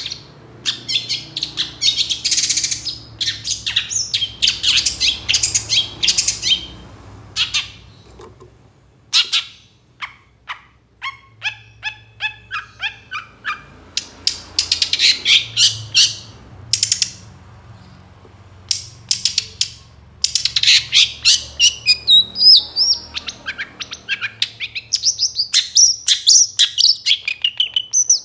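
Caged long-tailed shrike (cendet) singing at full intensity: long runs of rapid, scratchy chattering notes mixed with clearer whistled phrases, broken by a few short pauses. A faint low hum runs underneath.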